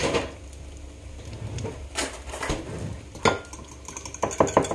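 A fork or spoon clinking against a ceramic mug holding two raw eggs. First come a few separate clinks, then near the end a fast run of strokes, several a second, as the eggs are beaten.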